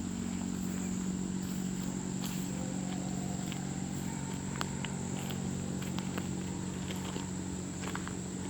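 Rural outdoor ambience: a steady high-pitched insect drone over a low steady hum, with a few faint scattered clicks.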